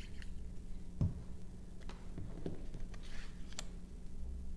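Paper and cardstock being handled on a craft table: a soft knock about a second in, then a few light clicks and a brief rustle.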